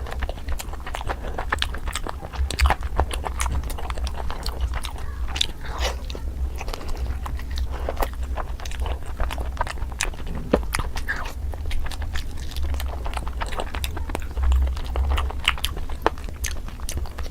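A person chewing and biting tandoori chicken close to the microphone, with many irregular short mouth clicks and smacks over a steady low rumble.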